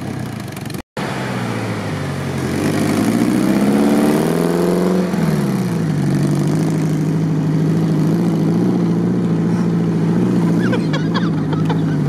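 Suzuki Samurai's engine revving up, its pitch rising for a couple of seconds, then dropping back and holding steady revs. The sound cuts out for an instant about a second in.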